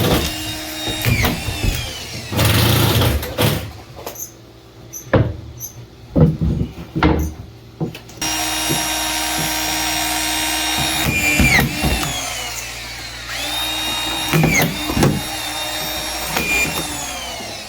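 Power drill driving screws into timber in several short runs. Its whine sweeps up as it spins and falls away as it stops, with a few separate knocks between runs in the middle.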